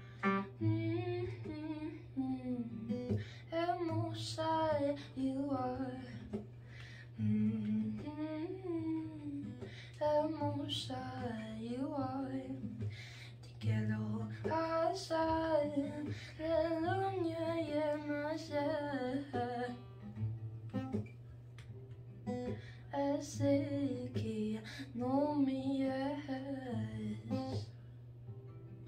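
A woman singing, accompanying herself on a Yamaha acoustic guitar.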